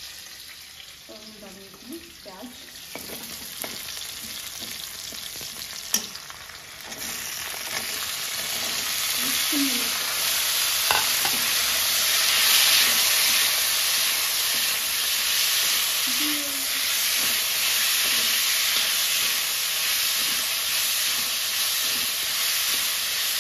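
Chopped onion and green capsicum sizzling in hot oil in a kadhai, stirred and scraped with a metal slotted spoon. After a sharp clink about six seconds in, the sizzle becomes much louder and stays steady.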